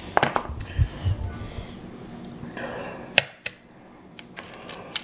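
Ground meat being handled in a stainless steel mixing bowl: a few dull low thumps early on, then several sharp clicks and taps on the bowl.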